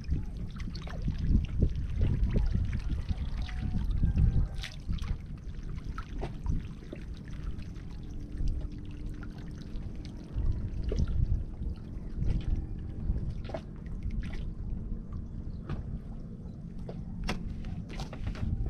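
Seawater lapping and trickling around the bamboo fish pen, with scattered small clicks and splashes over a low, uneven rumble. A faint steady hum comes in about halfway through.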